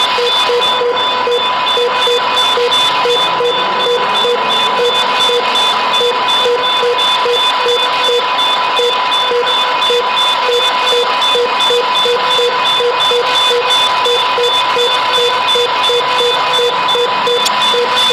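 Electronic emergency siren sounding steadily: a constant high tone with a beeping pulse about two to three times a second over a hiss, with no rise or fall in pitch.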